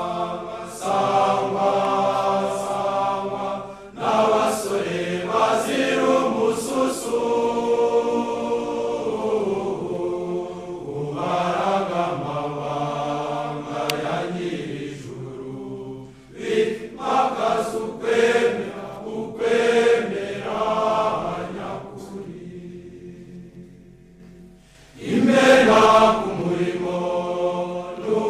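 Choir singing a hymn phrase by phrase. There are short breaks between phrases, a quieter passage, and then a louder entry near the end.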